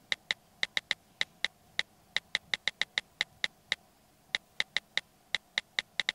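Smartphone on-screen keyboard clicks, one for each key tapped while a text message is typed: about two dozen short, identical ticks in quick uneven runs, with a pause of about half a second near the middle.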